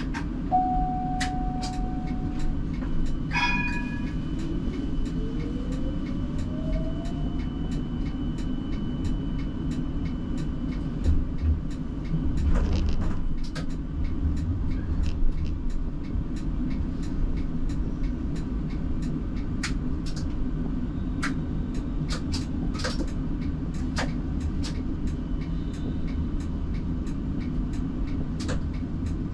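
Siemens Combino tram running, heard from the driver's cab: a steady low rumble of wheels on rail with scattered clicks and knocks, a louder cluster of knocks about twelve seconds in. A few seconds in, the traction motors' whine rises steadily in pitch as the tram picks up speed, just after a brief ringing tone.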